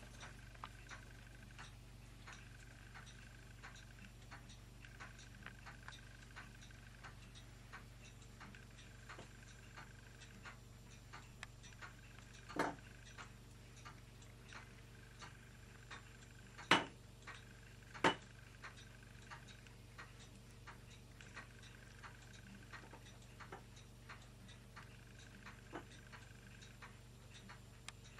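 A quiet room with a clock ticking steadily, and a few louder knocks about halfway through.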